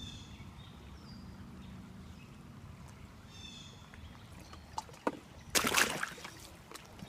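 Steps through shallow creek water over stones, with a few clicks and then a loud splash about five and a half seconds in. A bird chirps briefly a few times in the first few seconds over a low steady rumble.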